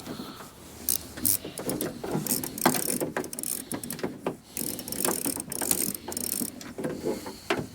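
Ratchet wrench clicking in short, irregular runs as it backs out the 10 mm bolts holding a car door handle.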